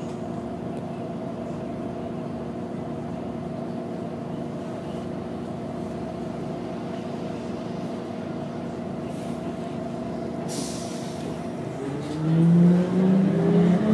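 City bus engine idling steadily while the bus stands at a stop. About ten and a half seconds in there is a short hiss of air. Near the end the engine revs up with a rising pitch as the bus pulls away.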